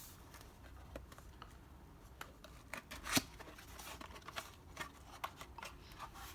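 A cardboard tool box being opened and its packaging handled: scattered small clicks and scrapes, with one sharper knock about three seconds in.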